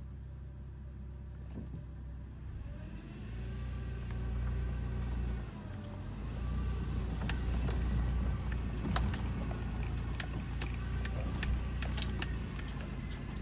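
Toyota 4Runner's engine running at low trail speed, heard from inside the cabin as the SUV crawls over a rocky dirt track. Sharp knocks and rattles from the vehicle jolting over rocks come more often in the second half.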